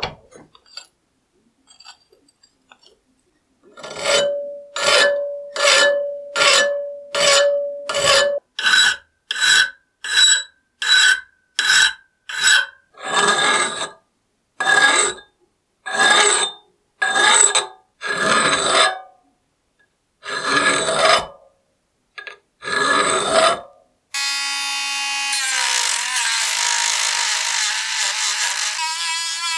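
A hand file pushed across the steel shaft of an old chisel clamped in a vise: some two dozen rasping strokes, about one a second, with the steel ringing under the first several. Near the end a rotary tool with a sanding drum starts up and runs steadily against the shaft.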